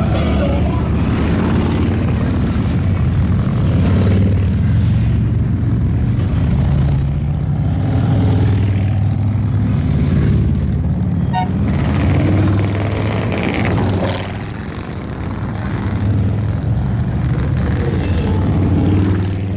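A stream of motorcycles, mostly Harley-Davidson V-twins, riding past one after another. Their engines run loud and continuous, with small swells as bikes come and go.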